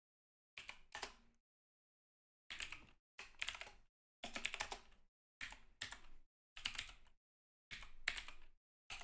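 Typing on a computer keyboard: quick runs of keystrokes, about seven of them, each starting and stopping abruptly with dead silence between.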